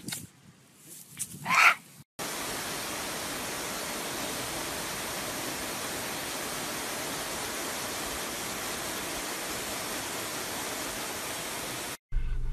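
A short loud sound about a second and a half in, then a steady, even hiss of water spraying from a garden hose that starts suddenly after about two seconds and cuts off suddenly near the end.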